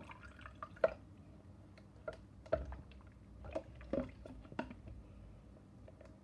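A toy baby doll being washed in a small doll bath: a handful of short squishes and splashes of water as it is handled, about six in all, the sharpest about a second in.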